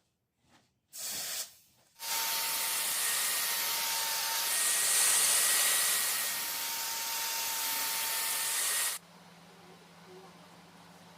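Loud steady hiss lasting about seven seconds that cuts off abruptly, after a brief shorter burst of the same kind of noise.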